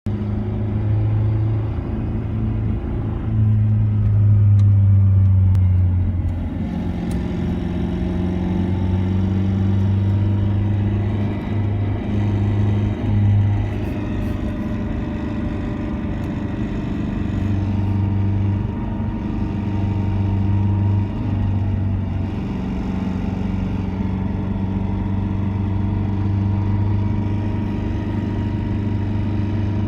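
Mercedes-Benz SLK (R172) engine running at a steady speed with small rises and falls, carrying the knocking, rattling noise that the owner reports from about 2,500–3,000 rpm and cannot explain.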